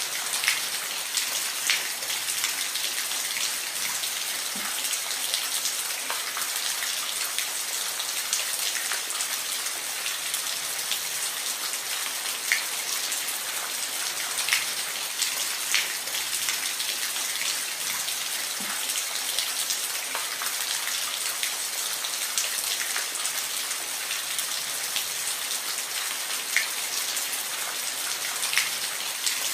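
Steady rain falling, a dense even hiss with individual drops ticking sharply here and there.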